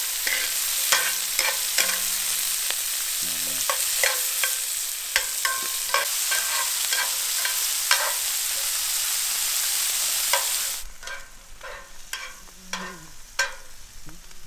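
Hot oil sizzling loudly in cast-iron skillets as fiddleheads sauté and breaded pike fries. Metal tongs click and scrape against the pan while the food is turned. The sizzle cuts off suddenly about eleven seconds in, leaving only a few scattered clicks.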